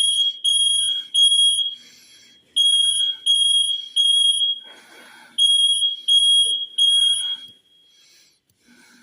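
Smoke alarm going off in the temporal-three pattern: three loud, high-pitched beeps, a pause, and the group of three repeated three times before it stops about seven and a half seconds in.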